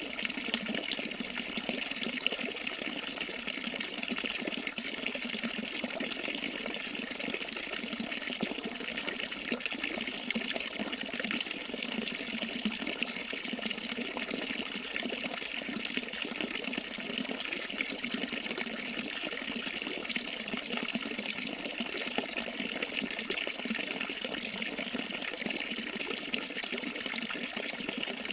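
Flowing water splashing steadily, an unbroken rush with no change in level.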